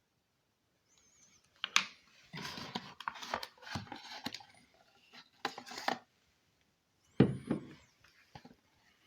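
Cough syrup packaging being handled by hand: a few sharp knocks and clicks of cardboard and plastic with stretches of rustling. Two short high chirps come through, about a second in and again near the end.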